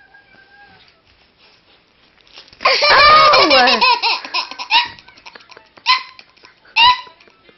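A toddler laughing: a long, loud peal of laughter begins about two and a half seconds in, followed by several shorter bursts of giggles.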